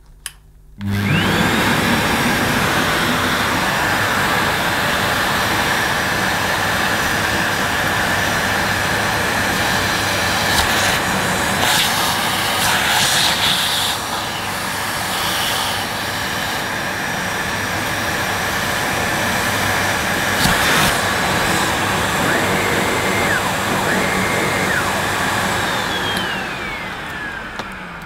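Sebo Felix upright vacuum cleaner switched on about a second in, its motor whine rising to speed, then running steadily with a few brief clicks, and switched off near the end, the whine falling as the motor winds down. It is a test run after the hose has been pushed fully home to work the power-head micro switch, which is taken to be the fault.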